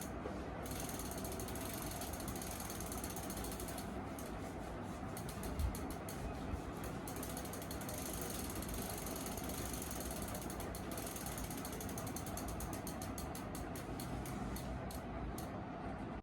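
Bicycle freehub ratcheting in rapid clicking runs that speed up and slow down as the rear wheel coasts, over steady background noise, with a couple of soft thumps about six seconds in.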